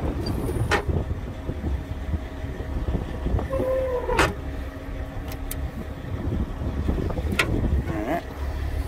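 Detroit Diesel Series 60 inline-six diesel of a fire truck idling with a steady low rumble, with three sharp metallic clicks along the way.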